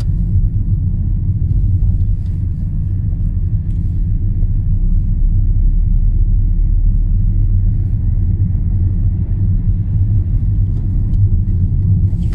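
Low, steady rumble of a car driving along, heard from inside the cabin: engine and tyre noise.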